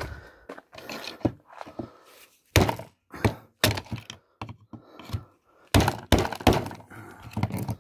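Sharp metal knocks as a long screwdriver is jabbed and levered down inside a vacuum cleaner motor's housing, a quick run of strikes about two and a half seconds in and another about six seconds in.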